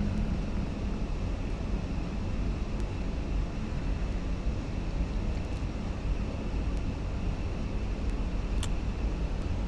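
Central air conditioning blowing steadily from a vent: an even, low rush of air, with one faint click near the end.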